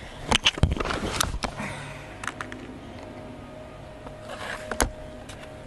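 Gamo Magnum GR .22 break-barrel spring-piston air rifle being cocked and loaded, its mainspring greased with Tune-In-A-Tube: several metallic clicks and clacks as the barrel is broken open and a pellet is seated. About five seconds in comes a single sharp click as the barrel is snapped shut.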